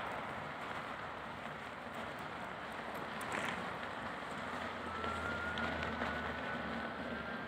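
Electric unicycle rolling over packed snow: a steady rush of tyre and wind noise, with a faint high hub-motor whine that rises slightly in pitch in the second half as it picks up speed.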